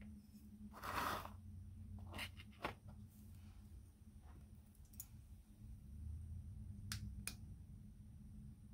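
Faint handling sounds of a glass fruit knife and its cardboard box: a brief rustle about a second in, then scattered light clicks and taps, with two sharp clicks near the end.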